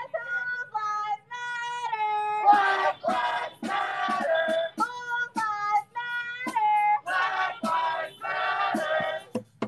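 A high voice singing a slow melody of held notes, some sliding between pitches, with short breaks between phrases.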